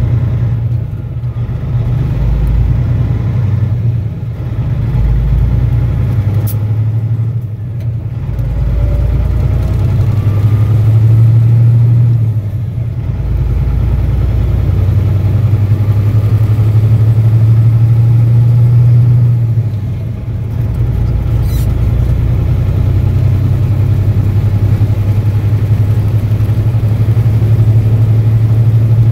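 Semi truck's diesel engine heard from inside the cab as the truck pulls away and accelerates. The engine drone dips briefly several times as it shifts up through the gears.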